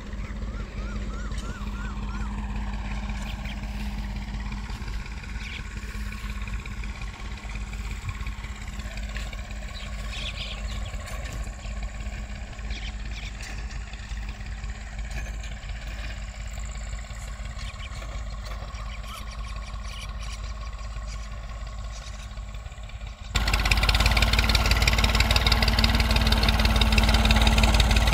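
Tractor diesel engine running steadily while pulling a tine cultivator through a cotton field, at a distance for most of the time, then abruptly much louder near the end as the tractor is close by.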